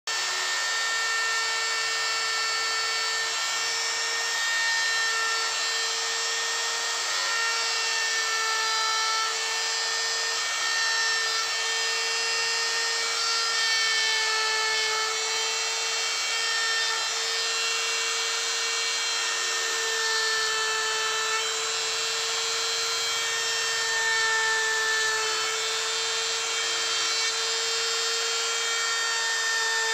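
Small high-speed power tool running continuously as it cuts into wood, a steady whine with slight shifts in pitch as it takes load.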